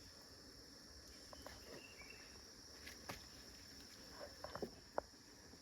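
Steady high-pitched drone of forest insects, faint, with a few short chirps near two seconds in and several light knocks or taps in the second half, the sharpest about five seconds in.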